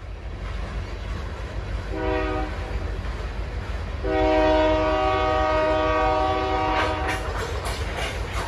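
Train horn sounding a short blast and then a long blast of about three seconds, several tones at once, over a steady low rumble from the passing train. A few sharp knocks come near the end.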